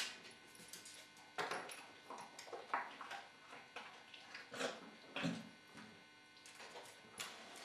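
A dog rummaging in an open oven and on its door: scattered faint clicks, scrapes and rustles at irregular intervals.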